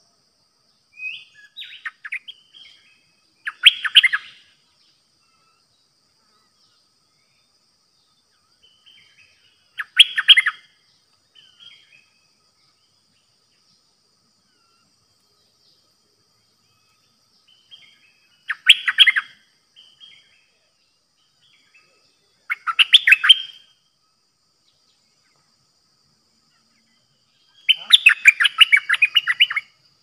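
Caged decoy bulbul singing short song phrases every few seconds, the last one, near the end, longer than the rest.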